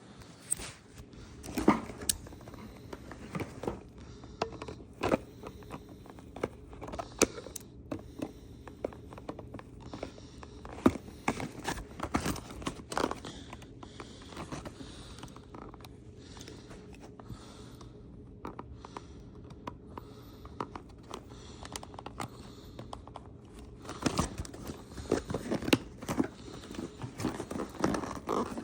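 A cardboard toy box and its packaging being handled and worked open by hand, with irregular clicks, scrapes and crinkling. The handling gets busier near the end.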